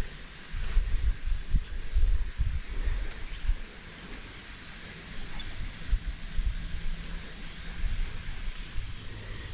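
Insects chirring steadily in a single thin high tone, with irregular low rumbling bumps on the microphone, most of them in the first few seconds.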